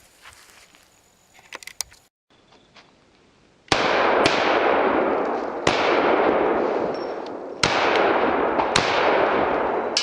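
A string of six gunshots at uneven spacing, the first about three and a half seconds in and the last right at the end, each followed by a long echoing tail that runs into the next.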